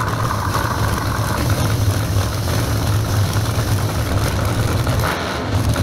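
Nitrous-fed drag racing engines idling loudly and steadily at the starting line, with the hiss of a nitrous purge venting above them.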